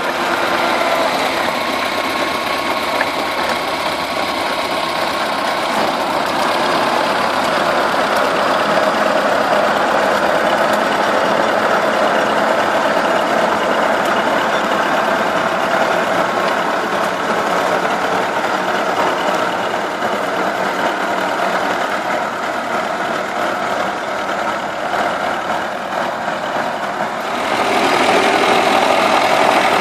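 Turbocharged T-40 tractor's diesel engine running steadily while it drives a rear-mounted PTO rotary tiller through the soil. The sound gets louder near the end.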